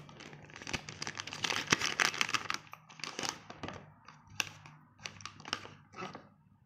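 A printed plastic cigar bag crinkling and crackling as it is handled and opened: a dense stretch of crackle in the first few seconds, then several shorter separate crinkles.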